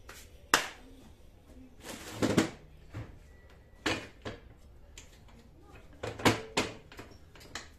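Knocks and clatter from a new front shock absorber and metal strut parts being picked up and set in position at a metal workbench. About eight sharp knocks, with a short rattle about two seconds in and the loudest knock about six seconds in.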